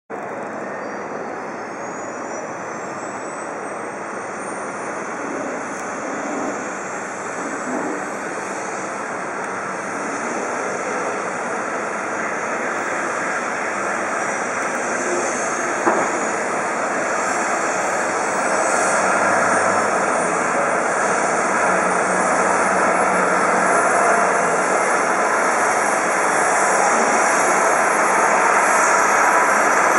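Agusta A109 Power twin-turbine helicopter running up on the pad: a high turbine whine climbs steadily in pitch while the overall engine and rotor sound grows slowly louder. A single short click about halfway through.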